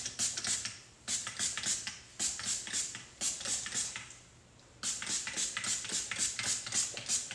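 A can of hair shine spray sprayed into the hair in quick short hissing bursts, about five a second, with a brief pause a little past halfway.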